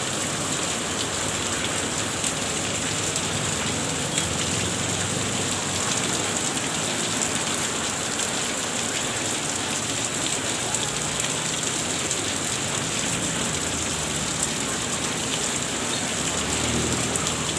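Steady heavy rain, a dense hiss full of small drop ticks on a hard surface nearby.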